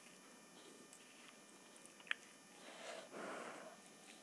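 Faint wet squishing of fingers mixing rice and dal in a steel plate, loudest for about a second near the three-second mark, after a single sharp click about two seconds in.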